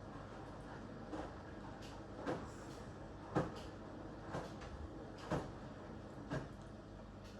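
Samsung WW6800 front-loading washing machine in its wash phase: the drum turns and wet laundry drops with a soft thud about once a second over a steady low hum.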